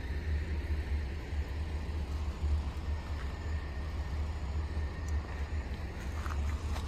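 Steady low rumble of outdoor background noise, with a faint steady high tone above it.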